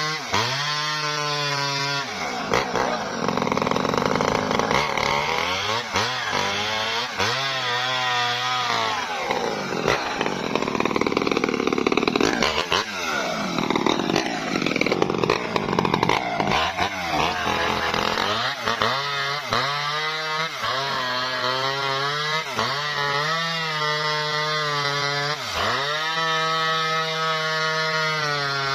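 Small Maestro two-stroke chainsaw cutting through a felled coconut palm trunk: the engine is revved up and down, then bogs into a long, heavy cut from about two seconds in to past the middle, and goes back to short revs and dips near the end.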